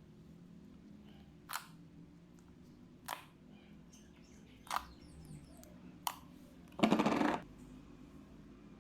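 Fluffy slime being poked and pressed: four sharp air-bubble pops about a second and a half apart, then a short burst of rapid crackling pops near the end, the loudest sound.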